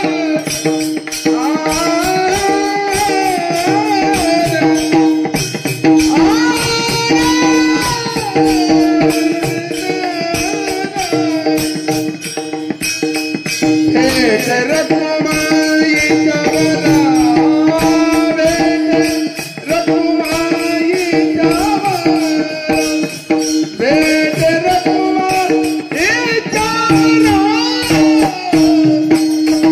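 Marathi devotional abhang singing: a solo voice with long gliding melismatic phrases over a steady held drone note, accompanied by fast continuous percussion.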